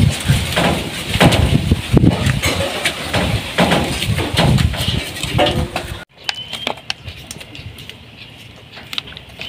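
Loud, irregular knocking and rustling for about six seconds, then a sudden drop to quieter scattered clicks and scrapes of potatoes being peeled by hand, with a bird's short chirp.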